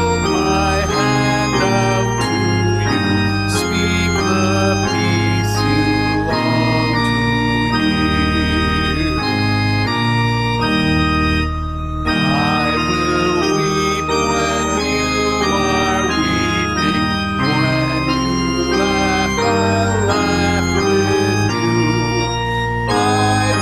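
Organ playing a hymn in sustained chords over a deep held bass, with a man singing along. The music dips briefly about twelve seconds in, between phrases.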